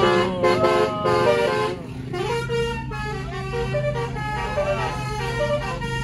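Musical air horn of the basuri/'telolet' type playing a quick melody of stepped notes, several tones at once. It is loudest in the first two seconds, then continues more softly over a steady low drone.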